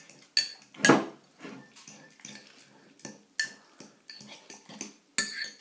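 Metal fork clinking and scraping against a ceramic bowl as it mashes cooked apples into compote against the sides. It makes a series of irregular clicks and short scrapes, the loudest about a second in.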